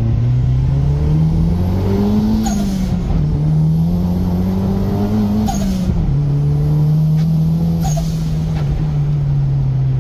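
Turbocharged 3S-GTE inline-four in a Toyota Corolla accelerating hard through the gears: the engine note climbs, then drops at each shift, about two and a half seconds in, near the middle and about eight seconds in. Each shift brings a short hissing burst of turbo flutter.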